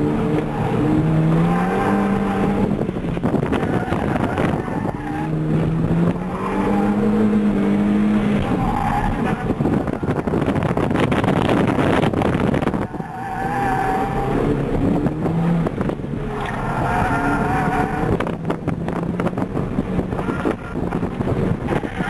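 Mini Cooper S four-cylinder engine heard from inside the cabin under hard driving, repeatedly revving up and dropping back. Tires squeal through the tightest corner, about ten seconds in.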